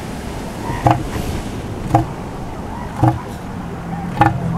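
Bull northern elephant seal giving its threat call, four short, low pulses about a second apart, the call a breeding bull uses to warn off rival males. Surf washes behind it.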